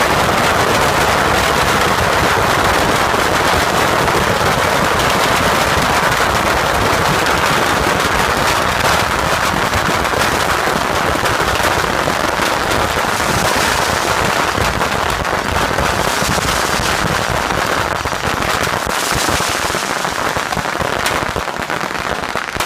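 A Yanshui beehive fireworks battery firing: a rack of thousands of bottle rockets launching at once in a dense, unbroken crackle of whooshes and bangs, thinning a little near the end.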